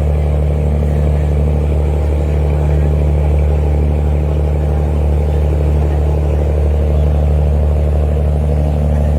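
A boat's diesel engine running steadily under way: a loud, even, low drone with a deep hum and no change in pitch.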